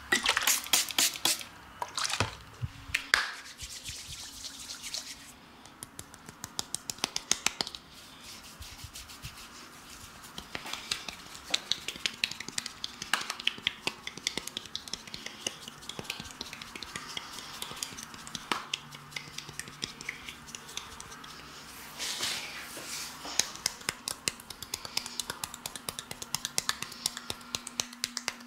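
Hands massaging a man's face and ears: fingers rubbing and pressing on skin, with many quick, sharp clicks and taps coming in clusters.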